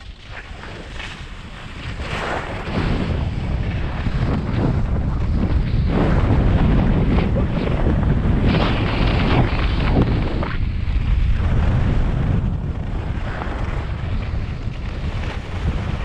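Wind buffeting the microphone of a moving skier, with skis hissing and scraping over packed snow in surges as they turn. It grows louder about two seconds in as speed picks up.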